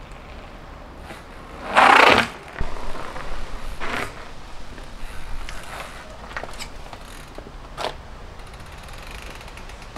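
Downhill mountain bike ridden over asphalt and then handled: a short loud rush of noise about two seconds in, then scattered light knocks and clicks from the bike. Faint fast ticking of the rear hub's freehub comes near the end.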